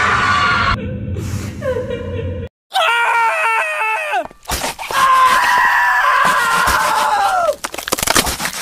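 Several loud, drawn-out screams one after another, cut off abruptly between them; the longest comes in the second half and falls in pitch as it ends.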